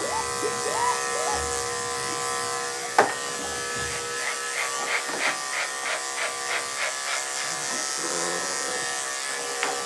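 Andis five-speed electric dog clipper with a 7 blade running steadily, a buzzing hum, as it clips a dog's coat. There is one sharp click about three seconds in.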